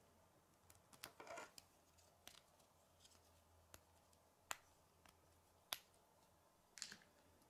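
Plastic K'nex rods and connectors clicking and snapping together as pieces are pressed into place by hand. Scattered small clicks, with two sharper snaps a little past halfway, about a second apart.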